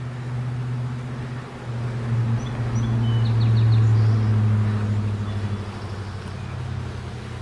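A motor vehicle's engine hum passing by, swelling to its loudest about halfway through and fading again, with a few faint bird chirps.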